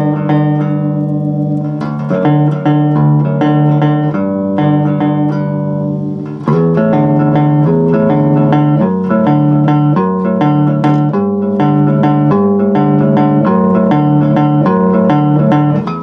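Background music on a homemade cigar box bass guitar: plucked bass notes in a steady rhythm, getting louder and fuller about six and a half seconds in.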